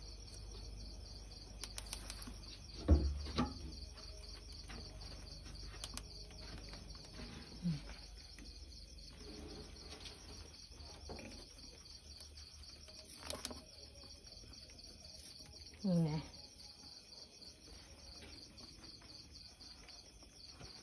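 Crickets chirping in a steady, fast, even pulse. A loud thump comes about three seconds in, and a few short sounds falling in pitch come about three, eight and sixteen seconds in.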